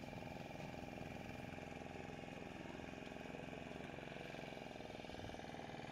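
Small engine of a wooden fishing boat running steadily, faint, with an even pulsing chug.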